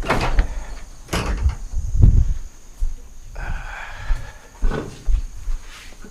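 Tires and wheels being handled and loaded: several heavy knocks and thumps, a short scraping rub about three and a half seconds in, and lighter knocks near the end.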